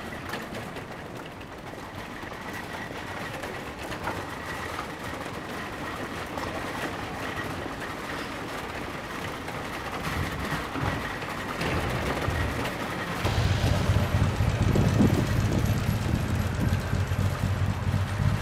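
Street background noise with a steady hum of traffic. Near the end a louder low rumble sets in and holds.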